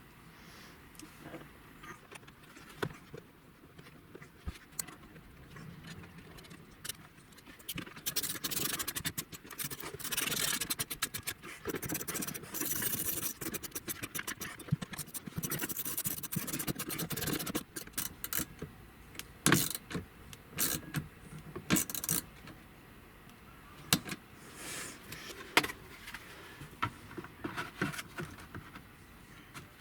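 Plastic interior trim being worked into place in a pickup's cab: a string of clicks, rattles and plastic scraping, with a long stretch of rubbing in the middle and several sharper snaps later on as pieces seat.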